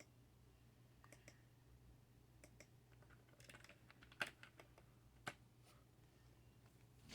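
Faint, irregular light clicks and taps over a low steady hum, with the sharpest click about four seconds in and another about a second later.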